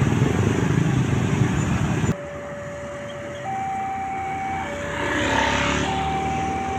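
Loud, steady vehicle rumble that cuts off abruptly about two seconds in. It gives way to an Indonesian railway level-crossing warning siren of the new type, alternating between a lower and a higher steady tone, each held about a second. A vehicle passes by midway through the siren.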